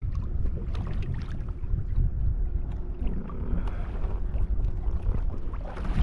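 Wind rushing over the microphone and ocean water sloshing against the kayak's hull, with scattered light knocks.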